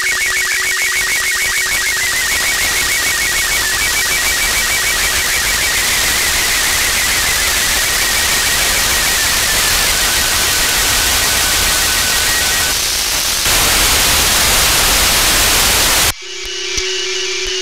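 Radio receiver static from an SDR tuned to the PSAT-2 satellite's downlink, with the weak, wavering tones of an SSTV picture signal faintly under the hiss, fading out partway through. Near the end the hiss cuts off suddenly as a clear signal comes in: a steady low tone with stepping higher tones.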